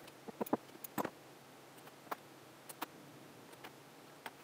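Faint, scattered clicks and light taps of metal parts being handled while the housing of a Welch vacuum pump is worked apart, about half a dozen spread unevenly over the few seconds.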